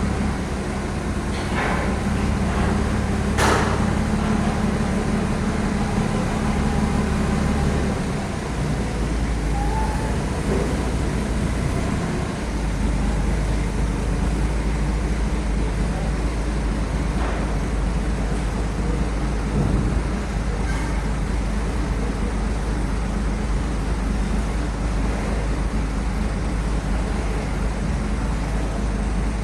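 Heavy truck engine running steadily under load, its low note shifting to a new level twice, about eight and twelve seconds in. A few short knocks come in the first few seconds.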